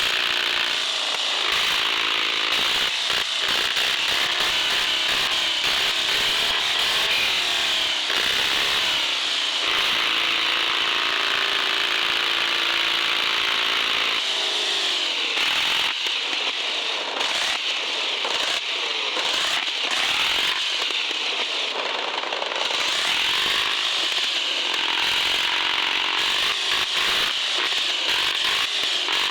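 Electric motor and gearbox of a radio-controlled 4x4 crawler truck whining as it drives, a high continuous whine that rises and falls in pitch.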